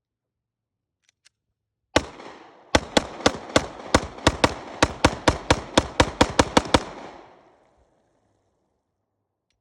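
9mm Glock pistol fire: a single shot about two seconds in, then a fast string of around seventeen shots, about four a second, as a full magazine is emptied, with echoes fading out after the last shot.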